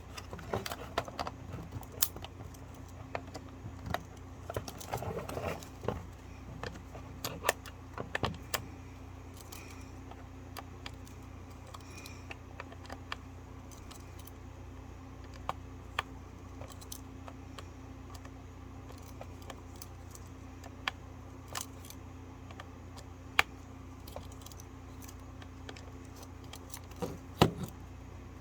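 Clicks, rattles and clatters of a plastic surge protector casing and its small metal parts being handled and pried apart during disassembly. They are busiest in the first nine seconds, then sparse, with a few sharp clicks later on, over a steady low hum.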